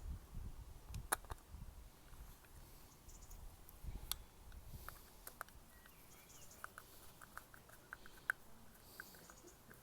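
Faint, scattered clicks and taps from small motorcycle indicator parts being handled and fitted, with a quicker run of light ticks near the end.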